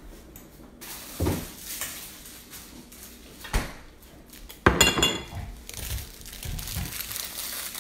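Kitchenware being handled: a few separate knocks, then a louder clatter with a ringing clink about five seconds in.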